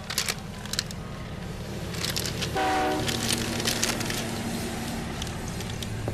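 Train running with a steady low rumble, and a short horn toot about two and a half seconds in. Crinkling of a plastic snack packet comes and goes over it.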